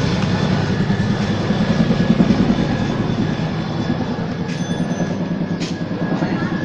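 A steady low engine-like rumble, loudest about two seconds in, with two short sharp clicks near the end.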